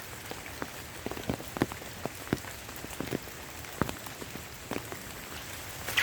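Rain falling: a steady hiss with scattered sharp drop hits landing at irregular intervals.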